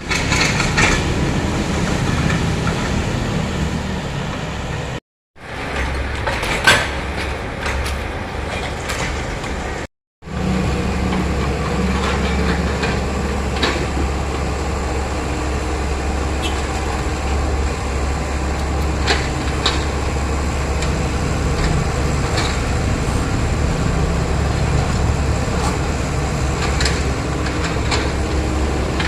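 Komatsu hydraulic excavator's diesel engine running steadily under load while it demolishes a building, with scattered cracks and knocks of breaking debris. The sound cuts out briefly twice in the first third.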